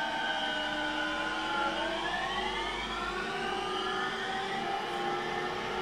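VVVF traction inverter of an unrefurbished JR E231-series electric train, heard from on board over the low running rumble. Several whining tones glide down, then about two seconds in give way to tones that climb steadily as the motors draw power. This falling-then-rising pitch is the sound nicknamed the 'crash' (墜落) inverter.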